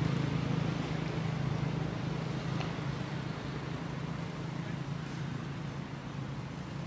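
Engine running steadily with a low hum over a faint hiss, easing off slightly in loudness.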